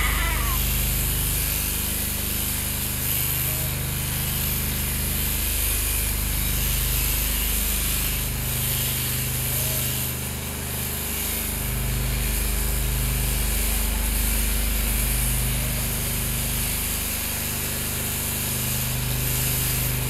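Electric sheep shears running continuously through a sheep's fleece: a steady motor hum with the cutter's buzz, wavering slightly in pitch and level.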